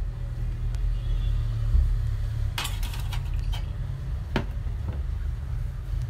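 A few sharp metallic clinks and taps between about two and a half and four and a half seconds in, as the sheet-metal fan and cover of a vacuum cleaner motor are handled and set down, over a steady low rumble.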